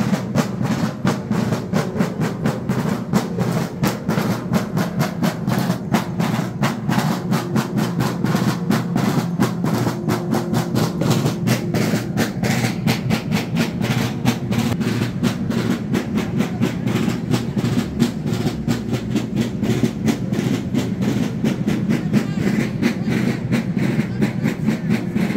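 A group of marching drummers beating rope-tensioned parade drums (Sicilian tamburi) in a fast, continuous rhythm of rapid strokes.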